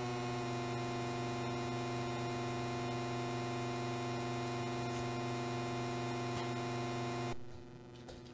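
Moog Model 15 iPad app synthesizer drone: a steady, buzzy low tone held on one pitch with a hiss of noise over it. It cuts off suddenly near the end as a patch cable is pulled, leaving a few faint ticks.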